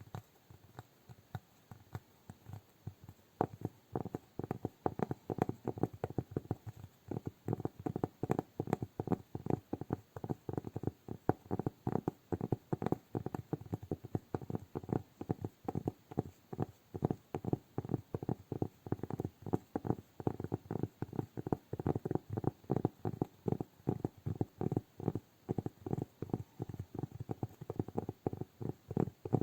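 Fingertips tapping on cork: quick, light, hollow knocks, sparse at first and then a steady run of several a second from about three seconds in.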